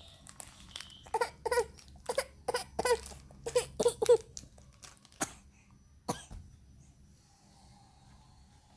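A baby coughing and whimpering in a quick run of about eight short, pitched coughs over three seconds, then two more single short coughs about a second apart.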